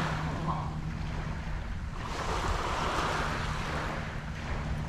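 Ocean waves washing onto the shore, the rush swelling and fading about every two to three seconds, with wind rumbling on the microphone and a faint steady low hum underneath.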